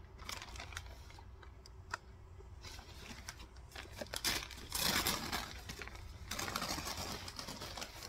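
Packaging crinkling and rustling as a shipped plant is unwrapped by hand. Scattered small clicks give way to two longer bursts of rustling in the second half.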